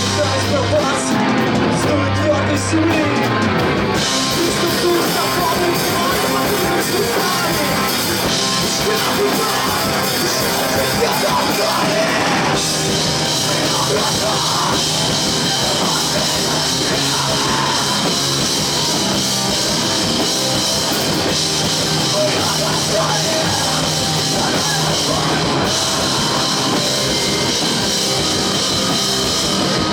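Rock band playing loudly: drum kit, guitars and some singing in a heavy, dense mix, with abrupt changes in the sound about four seconds in and again near twelve seconds.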